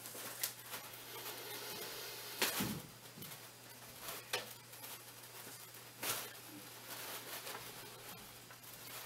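Cloth snake bag rustling as its knot is worked loose by hand, with a few short, sharper rustles, the loudest about two and a half seconds in.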